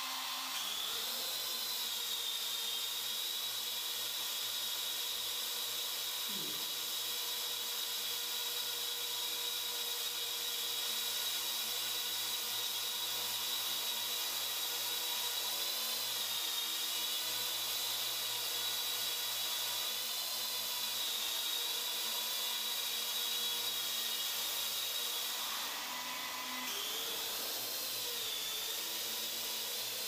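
Parrot AR.Drone quadcopter's four geared electric motors and propellers running, a steady high whine. The pitch wavers briefly about halfway through and again near the end.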